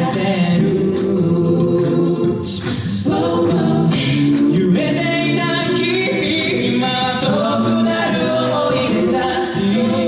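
Six-voice mixed a cappella group, men and women, singing a J-pop song in close harmony through handheld microphones, with sustained chords under the lead voice.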